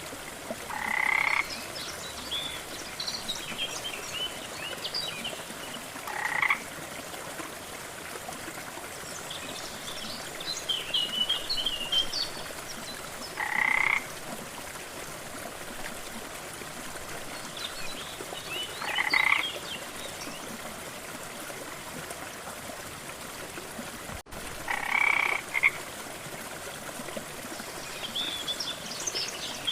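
Frogs croaking: a loud, short croak roughly every six seconds, with scattered higher chirps between, over a steady rush of falling water.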